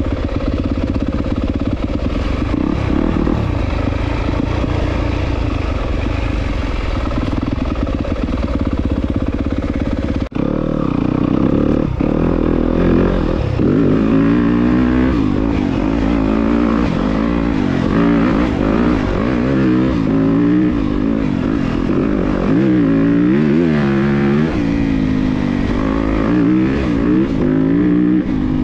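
Yamaha YZ250FX's single-cylinder four-stroke engine running while the bike is ridden along a trail, fairly steady at first. After a momentary break about a third of the way in, its pitch rises and falls again and again as the throttle is worked.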